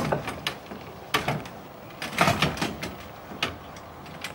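Gear being handled and set down in a small motorboat: a handful of separate knocks and clatters, the loudest at the start, then others about a second apart.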